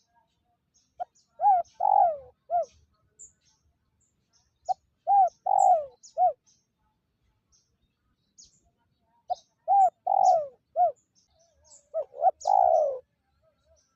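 Spotted dove cooing: four phrases a few seconds apart, each a short note followed by two or three arching coos. Faint high chirps of small birds sound in between.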